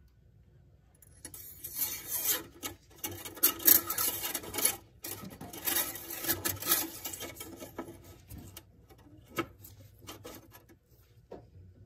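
Irregular rubbing and scraping as gloved hands handle the transmission dipstick tube and refit the dipstick, with a few sharp clicks near the end.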